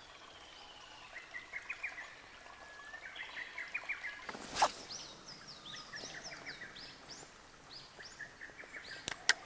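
Small birds chirping and singing in many short, quick notes. A brief burst of noise about four and a half seconds in, and two sharp clicks near the end.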